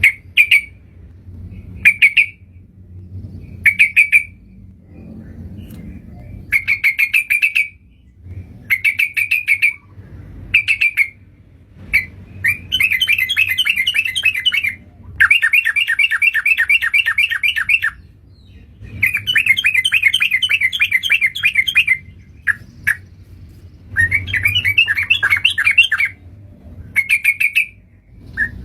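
Yellow-vented bulbul (trucukan) calling, the kind of call used as a lure for these birds: short bursts of fast chattering notes about every two seconds, then longer runs of rapid chattering lasting two to three seconds each.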